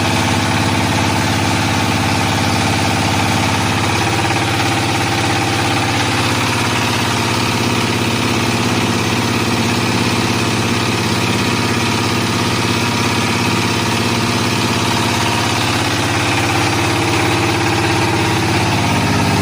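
Floating fish-feed pellet machine running steadily, its drive motor and extruder making a continuous mechanical hum.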